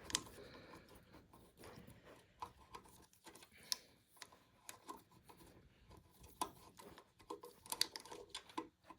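Faint, irregular clicks and scrapes of a hex key working small hex screws loose.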